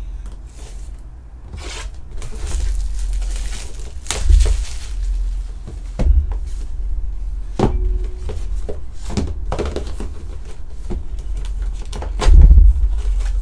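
Hands handling and opening a shrink-wrapped cardboard trading-card hobby box on a table: plastic wrap crinkling and tearing, with several thuds and knocks as the box is set down and slid, the loudest near the end.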